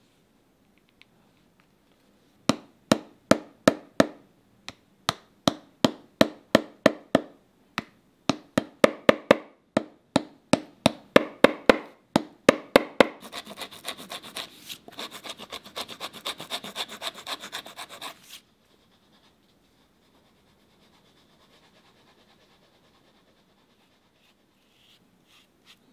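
Hand tools working the leather sole of a shoe: runs of sharp taps, two or three a second, then about five seconds of steady scraping that stops suddenly.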